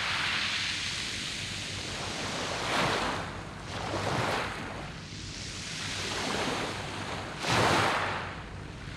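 Surf on a round-pebble beach: waves breaking and washing over the stones in a continuous rush. The surf swells several times, with the strongest surge near the end.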